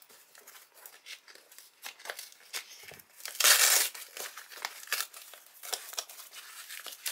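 Cardboard parcel box being picked at and torn open by hand: scattered scratches and crinkles, with one louder tear lasting about half a second around the middle.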